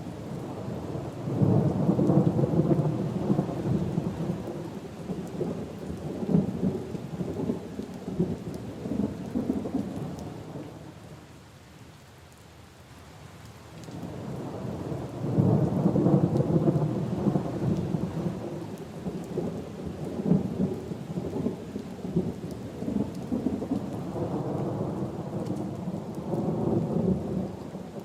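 Two long rolls of thunder over steady rain. The first rumbles in about a second in and fades out by about eleven seconds; the second builds from about fourteen seconds and is still rolling at the end.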